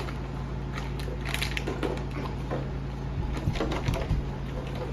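Scattered rustles, taps and clicks of toys and plastic packaging being handled, over a steady low hum.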